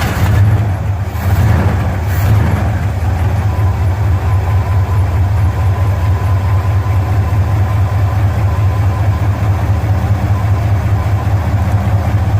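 1974 Ford F250's engine, just started, settling into a steady idle.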